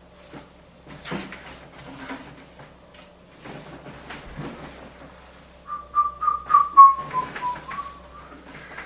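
Light handling knocks and clicks, then about two and a half seconds of a person whistling a short phrase of broken notes that drift slightly lower in pitch.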